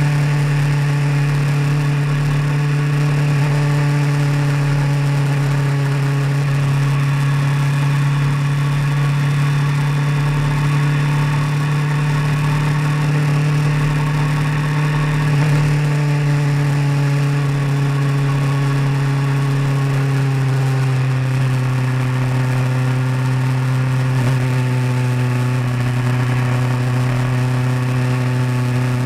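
Vehicle engine running steadily while driving on the road, with a constant low hum whose pitch drops slightly about twenty seconds in.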